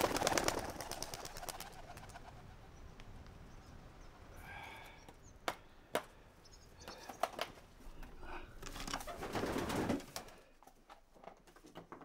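Homing pigeon clattering its wings as it takes off, a loud rapid flutter at the start, then a short call about halfway, a few sharp clicks, and another burst of flapping near the end.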